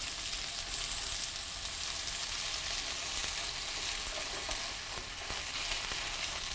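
Potato wedges frying in hot olive oil in a pan, a steady sizzling hiss as they brown.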